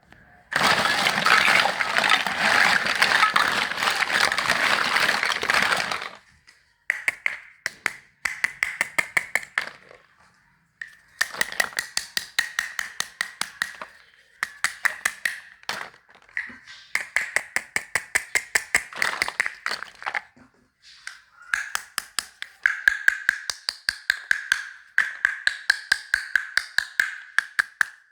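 Plastic baby toy clicking rapidly, several clicks a second, in runs of two to four seconds with short pauses and a faint ringing tone under the clicks. It opens with about five seconds of dense rattling hiss.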